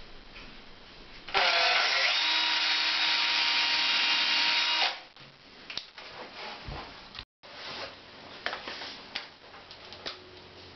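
Cordless 12-volt drill runs under load for about three and a half seconds, starting about a second and a half in with its motor winding up in pitch, as a roller-blind end bracket is fixed to the window frame. Light clicks and knocks from handling the drill and bracket follow.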